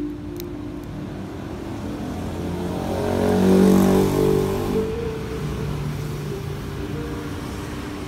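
Background music of sustained held notes. About three to five seconds in it swells louder, with a rushing noise over it.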